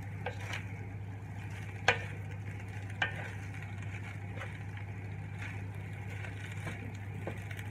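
Wooden spatula stirring and scraping fried rice around a stainless steel pan, with a faint sizzle and a steady low hum underneath. Two sharp knocks of the spatula against the pan, about two and three seconds in, are the loudest sounds.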